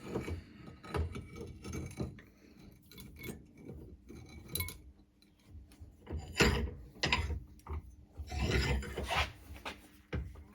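Metal parts being handled and shifted about: irregular scraping and rubbing with light knocks and clinks, in louder clusters after about six seconds.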